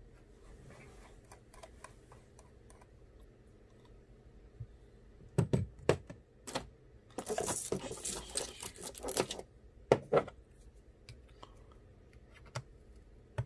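Handling noises of a phone repair with a precision screwdriver and small screws: faint clicks, two sharp taps about five and a half seconds in, a scratchy rustle from about seven to nine seconds, and single taps near ten seconds and near the end.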